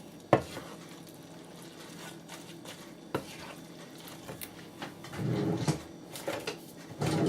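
A cooking utensil clanking and knocking against a pan as sauced noodles are stirred and handled. There is one sharp clank just after the start and a few lighter knocks later. About five seconds in there is a short low hum-like sound.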